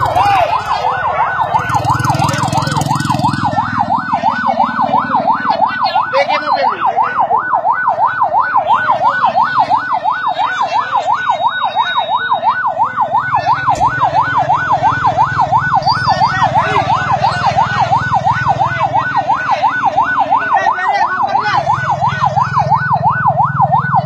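Fast yelping emergency siren, its pitch rising and falling about three times a second without a break, over a low rumble.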